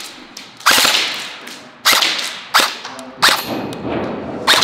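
An electric airsoft rifle, AR-15 style, fired in single shots: five sharp cracks about a second apart, each with a short ringing tail.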